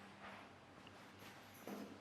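Near silence: room tone with a faint steady hum, broken by two soft, brief sounds, one just after the start and a slightly louder one near the end.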